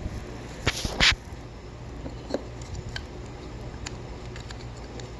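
Handling sounds of a battery terminal being fitted into an electric bike's battery tray: a couple of sharp knocks about a second in, then a few faint clicks.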